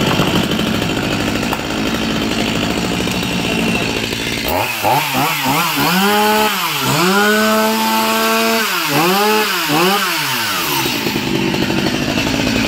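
STIHL MS250 two-stroke chainsaw running just after starting, with the choke taken off. It idles, then about four seconds in it is revved up and down several times, held at high revs for a couple of seconds in the middle, and drops back to idle for the last two seconds.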